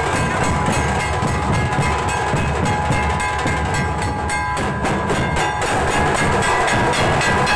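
A troupe of dhol drums, large double-headed barrel drums, beaten together in a fast, even rhythm, loud and unbroken.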